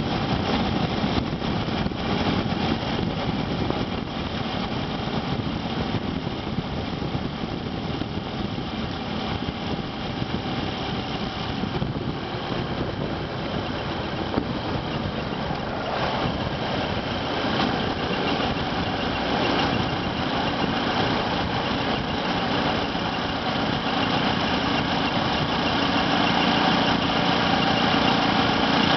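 Motorcycle engine idling, with an abnormal noise that the owner renders as 'kiko-kiko, hyoko-hyoko' (a squeaking, creaking sound). It grows somewhat louder about halfway through and again near the end.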